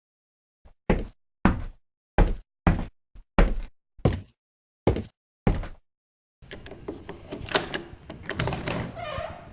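A series of about ten hard knocks, roughly two a second, with dead silence between them. About six and a half seconds in, a continuous crackling, rustling noise with scattered clicks takes over.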